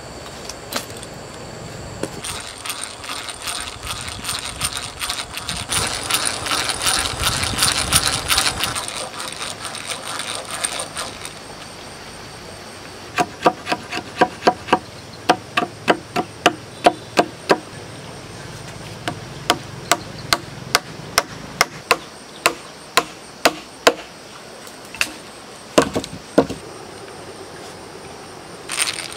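A hatchet's poll tapping a thin wooden peg into a hole through a notched log joint: a run of sharp wooden knocks about two a second through the middle, then two more strikes near the end. Before the knocks there is a long stretch of dense scraping and clicking at the joint.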